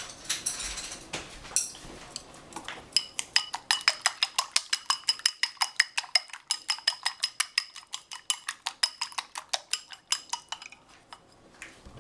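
Raw eggs being beaten with chopsticks in a ceramic bowl. A fast, even run of sharp clicks, about five a second, as the chopsticks strike the bowl, each click with a light ring. It starts about three seconds in and stops near the end.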